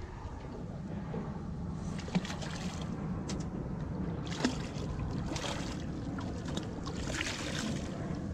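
A hooked Australian salmon splashing at the surface several times as it is played alongside the boat, over the steady low hum of the boat's idling engine.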